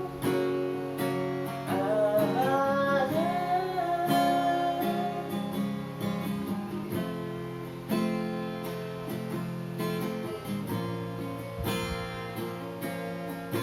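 Music: acoustic guitar strummed steadily as song accompaniment. About two to four seconds in, a wordless sung vocal run bends over it.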